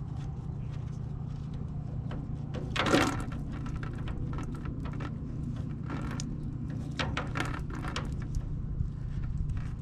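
Small clicks and taps as a leaking fuel drain valve is unscrewed by hand from the underside of a light aircraft's wing and a new valve is fitted in its place. One louder, short noise comes about three seconds in, and more clicks follow a few seconds later, over a steady low hum.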